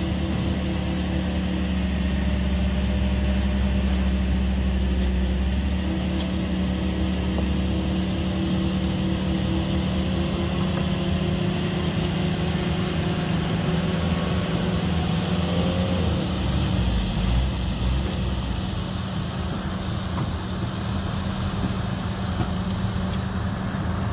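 A large engine running steadily with a deep hum, its low rumble shifting about six seconds in.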